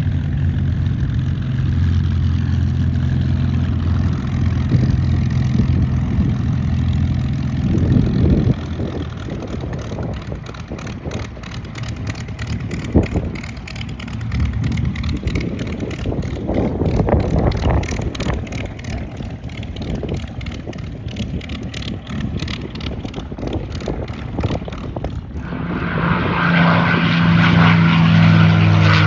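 P-51 Mustang V-12 piston engine droning steadily, fading after about eight seconds. Near the end it swells again to its loudest as an aircraft comes close, its pitch dropping as it passes.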